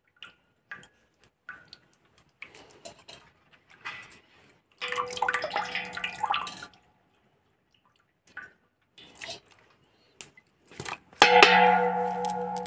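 Water dripping and splashing into a steel bowl as a handful of washed neem flowers is squeezed out and handled in it. Near the end a steel vessel is struck with a loud clank and rings on for a second or two.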